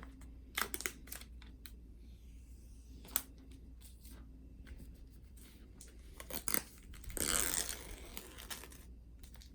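Paper pull-tab strip being torn open on an Apple Watch Series 4 box: scattered small clicks and rustles of paper, then a longer tearing run about seven seconds in.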